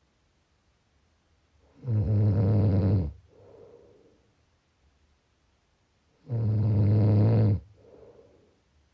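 A person snoring in sleep: two loud, low-pitched snores each lasting about a second, about four seconds apart, each followed by a softer breath out.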